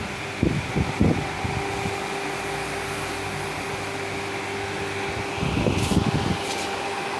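Large 40 cm Domina electric fan running: a steady, noisy whir of air with a constant motor hum. Low thumps come twice, around a second in and again near six seconds, and a couple of sharp clicks near the end.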